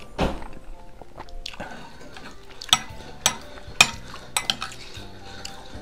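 Metal spoon clinking and scraping against a bowl, with about five sharp taps between about three and four and a half seconds in. Just after the start there is a short noisy sound. Soft background music plays underneath.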